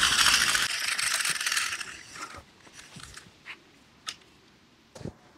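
A carpenter's ink-line reel whirring as its line runs through it, a rasping hiss for the first two seconds that fades out. A few light clicks and knocks follow.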